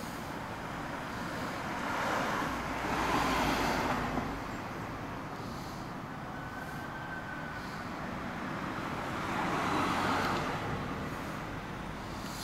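Road traffic: two vehicles pass, one about two to four seconds in and another around ten seconds, over a steady street hum.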